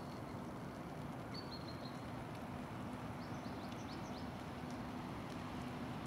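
Small birds calling outdoors: a thin, high, held whistle about a second and a half in, and a quick run of short high chirps between three and four seconds in. Beneath them runs a steady low rumble with a faint hum.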